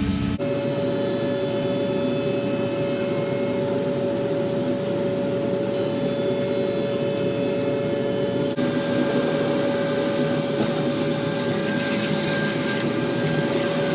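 Holz-Her CNC panel saw running with a steady machine hum and whine. It drops out briefly about half a second in, then goes on, with added hiss from about two-thirds of the way through.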